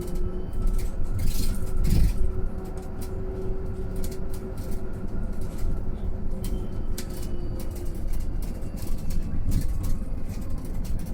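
Mercedes-Benz eCitaro G electric articulated bus driving, with a thin electric drive whine that rises slightly and then falls away over steady road rumble and small rattles. There is a heavier thump about two seconds in.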